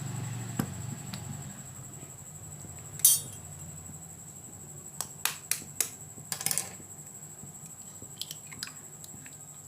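Kitchen utensils and cookware clinking and tapping at the stove as a non-stick kadai is readied with oil: a sharp click about three seconds in, a quick run of clicks and knocks a couple of seconds later, and a few fainter taps near the end, over a low steady hum.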